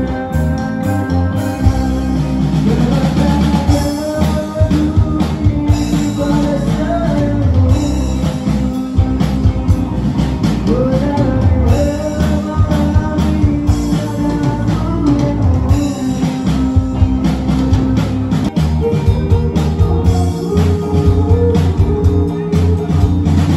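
Live rock band playing through a stage PA: electric guitar, electric bass and drum kit, with a singer's voice over them.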